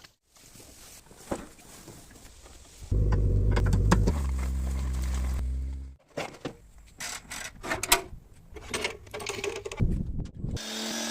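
A motor runs steadily for about three seconds and then stops abruptly, followed by a string of short knocks and clicks.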